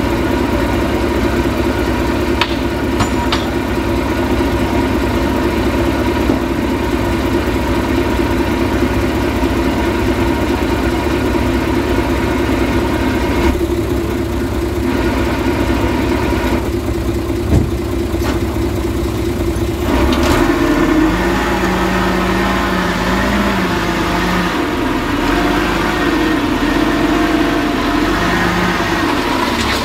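Diesel engine of heavy earthmoving machinery running steadily. Its note shifts about two-thirds of the way through, with a single sharp knock a little before that.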